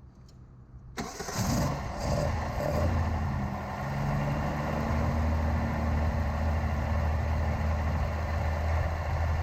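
1974 Datsun 260Z's 2.6-litre straight-six starting about a second in and then idling steadily.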